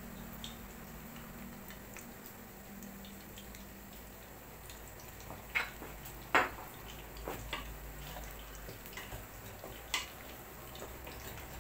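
Kitchen handling sounds: a few sharp clinks of a metal pot lid and cookware being set down and handled, the loudest about six seconds in, over a faint steady background hum.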